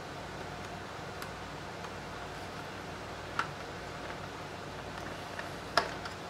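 Small parts of a disassembled LCD monitor being handled by hand: two short sharp clicks, one about halfway through and a louder one near the end, with a few faint ticks over a steady low hum.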